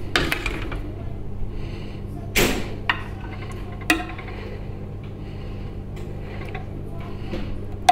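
Kitchen clatter while a lasagne is layered with béchamel: a few brief scrapes and knocks of utensils against the baking dish and pan, over a steady low hum.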